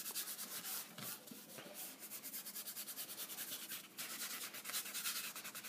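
Palms rubbing and smoothing a glued paper print flat against foam board: a soft, steady papery swishing made of many quick strokes.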